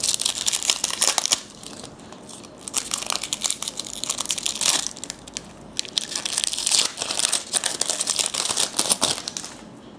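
Trading card pack wrapper crinkling as it is torn open and handled, in three spells of dense crackle.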